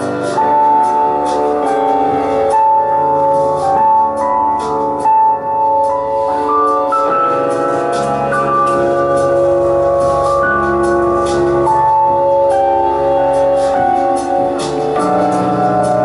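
Stage keyboard played live in a piano-like sound: held chords with a melody moving over them, the notes changing every second or two.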